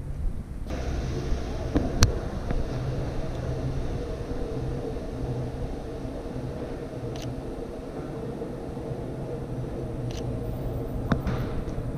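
City street traffic: vehicle engines running with a steady low rumble and hum, the hiss of traffic swelling just under a second in. Sharp clicks come about two seconds in and again near the end.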